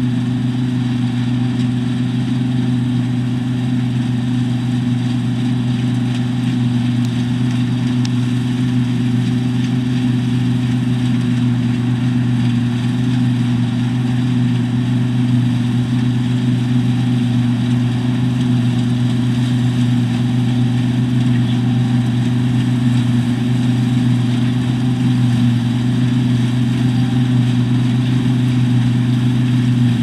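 New Holland TX36 combine harvester working through standing winter wheat: a steady drone of its diesel engine and machinery, growing slightly louder as it comes closer.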